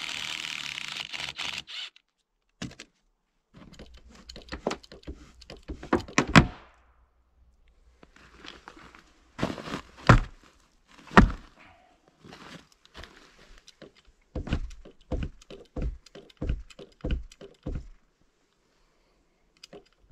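A cordless impact driver runs for about two seconds. Scattered wooden knocks and two heavy thumps follow as a boot kicks a timber platform. Then comes a regular run of knocks, about two a second, from a bottle jack being pumped.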